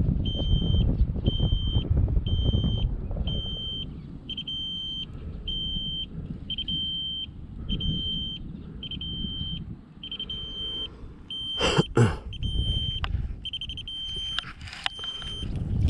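An electronic alarm beeping steadily, a short high beep about three times every two seconds, over wind buffeting the microphone. Two sharp knocks about twelve seconds in.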